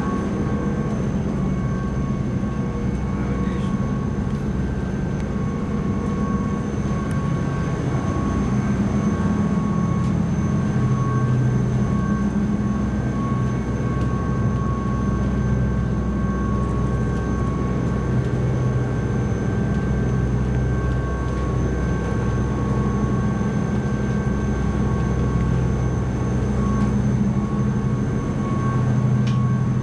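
Steady low drone of a high-speed ferry's engines heard from inside the passenger cabin, with a few thin, steady whining tones over it.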